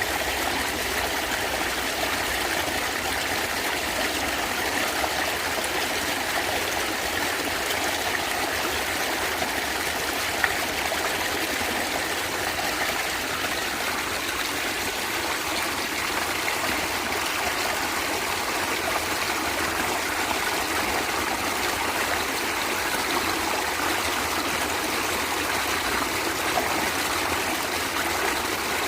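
A stream of water gurgling and trickling steadily, with a single faint click about ten seconds in.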